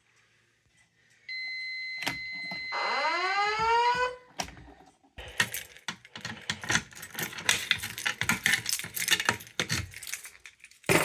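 Fire alarm voice-evacuation speaker sounding a steady electronic tone and then a rising whoop sweep, both cut off abruptly after about three seconds. Then several seconds of rapid, irregular clattering and rattling.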